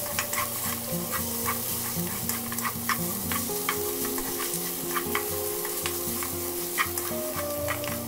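Julienned carrots sizzling in oil in a wok as they are stir-fried, with two wooden spatulas tapping and scraping against the pan in irregular clicks several times a second.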